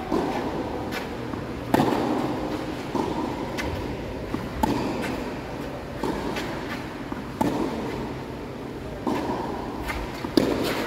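Tennis ball being struck by racquets and bouncing on the court during a rally: sharp pops spaced about one to three seconds apart, over steady background noise.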